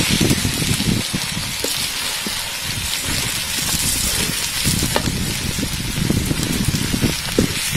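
Battered fried fish pieces sizzling in hot oil in a wok with garlic and onion as they are stirred, with a few scattered knocks.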